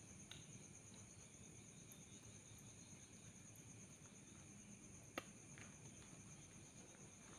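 Faint, steady chirring of night insects, with a single sharp click about five seconds in.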